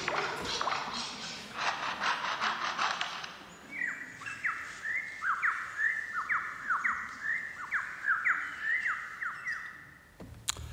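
Superb lyrebird mimicking foresters' chainsaws, played back over the hall's speakers. A dense, rapid rattling buzz lasts about three seconds, then a run of quick falling whines comes at about two to three a second.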